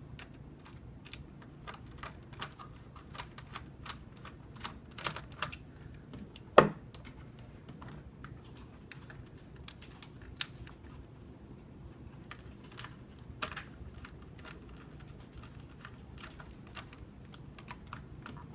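Scattered light clicks and taps of screws and a screwdriver on a plastic time clock housing as the back cover is screwed on, irregular rather than rhythmic, with a sharper knock about six and a half seconds in.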